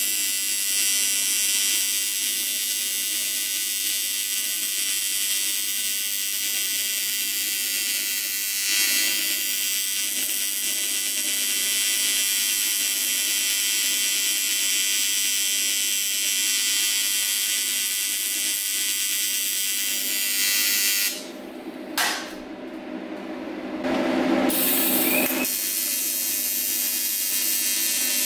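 TIG welding arc on a cast aluminum wheel, buzzing steadily as it makes a cleaning pass without filler, boiling contaminants out of the beveled crack. The arc stops for about three seconds about three-quarters of the way through, then strikes again.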